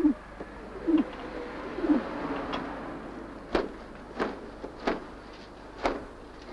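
Pigeons cooing, short low falling coos about once a second, followed by four sharp knocks spaced irregularly over the last few seconds.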